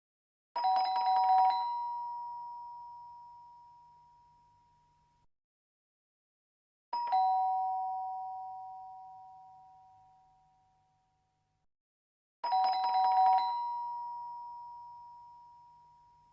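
Two-tone 'ding-dong' doorbell chime rung three times, about six seconds apart. Each ring fades out over about four seconds, and the first and third open with a brief rattle.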